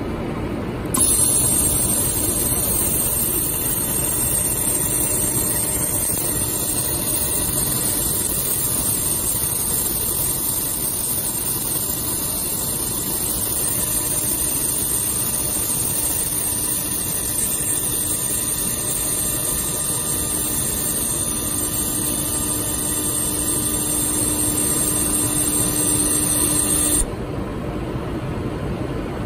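1000 W automatic laser welding machine welding a bearing shaft: a steady hiss starts suddenly about a second in and cuts off suddenly a couple of seconds before the end, over a steady machine hum.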